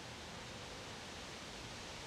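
Wind blowing steadily: an even hiss with a low, fluctuating rumble underneath.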